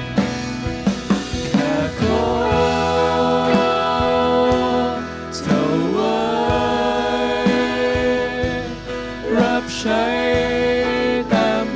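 Live worship band: several voices singing a Christian worship song in Thai in long held notes, backed by acoustic and electric guitars.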